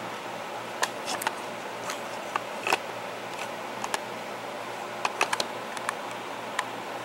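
Irregular small clicks and taps of a camera being handled and fitted onto a tripod mount, over a steady background hiss.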